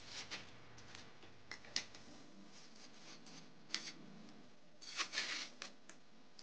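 Faint, short scrapes of a steel trowel working stiff, damp refractory cement mix in a plastic bucket, a few scattered strokes with a closer cluster about five seconds in.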